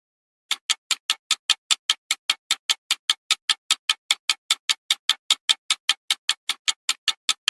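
Time-bomb countdown sound effect: a fast, even ticking of sharp clicks, about five a second, starting about half a second in.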